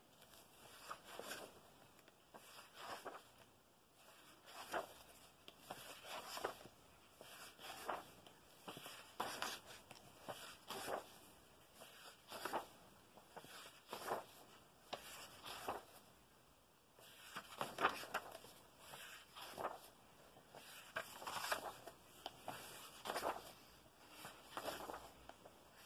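Paper pages of a colouring book being turned one after another: a short swish and rustle of paper roughly every one and a half seconds.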